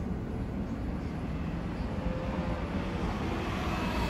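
Street traffic: a steady low rumble of vehicles, growing louder near the end as traffic comes closer.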